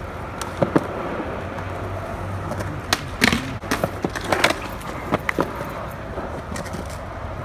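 A series of sharp clacks and knocks, clustered in the middle, over a steady low hum of outdoor background noise.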